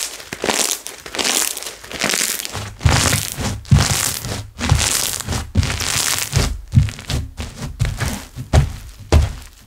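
Slime being squished and stretched by hand, with repeated crackling pops of air bubbles. From about three seconds in, dull thuds and sharp clicks join in as the slime is pressed and slapped down.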